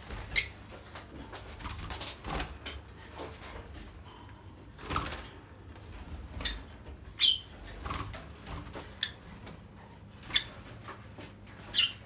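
Rosy-faced lovebirds in a wire cage giving short, shrill chirps, about six of them spaced a second or two apart, with softer rustling between.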